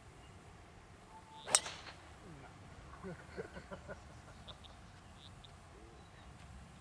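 A golf club striking a ball off the tee: one sharp crack about a second and a half in.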